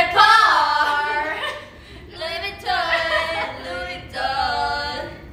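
Women's voices singing unaccompanied in three drawn-out phrases, the notes held longer than in speech, with short breaks about a second and a half in and again near four seconds.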